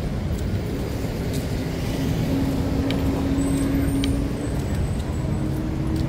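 Street traffic with a steady low rumble and a vehicle engine hum that comes up about two seconds in and rises slowly in pitch.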